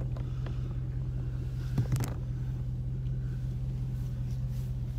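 A vehicle engine idling steadily, with two sharp knocks close together about two seconds in.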